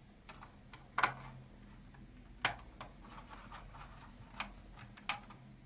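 Small screwdriver driving a chromed screw into a Fujitsu Siemens Amilo Pro V3515 laptop's plastic chassis: a few irregular sharp clicks and light ticks as the tip works in the screw head, the loudest about a second in and again near halfway.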